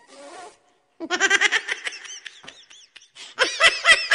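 A person laughing hard in quick, repeated high-pitched ha-ha pulses. The laughter starts about a second in and is loudest near the end.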